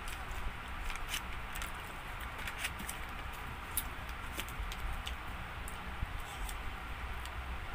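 Eating and food-handling sounds: scattered small clicks and rustles from chewing and from handling a pizza slice, a paper sheet and a sauce sachet over a cardboard pizza box, over a steady background hiss.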